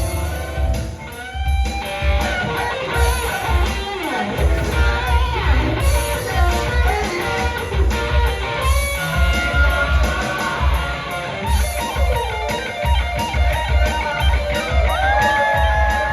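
Rock-and-roll music led by electric guitar over a steady low beat, with no singing.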